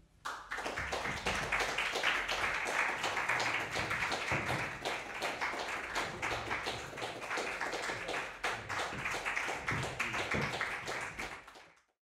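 Audience applauding, starting suddenly and fading out just before the end.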